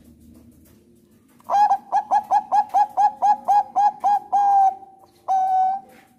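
Thai zebra dove (perkutut bangkok) singing. About a second and a half in, it gives a quick run of about a dozen short coos, roughly four a second, ending in a longer held note. One more long coo follows about a second later.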